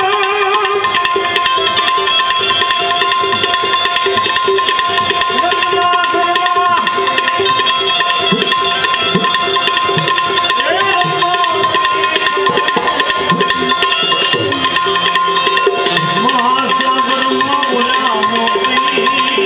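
Instrumental interlude of a Gujarati devotional bhajan: tabla playing a quick, steady rhythm under held drone notes and a melodic line that glides between pitches.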